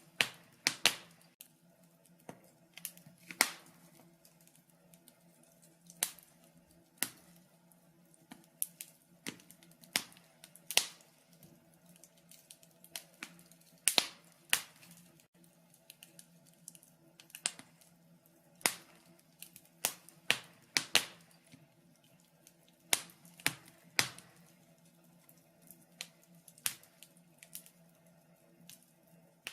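Wood fire in a fireplace crackling, with irregular sharp pops and snaps about once a second over a faint steady hum.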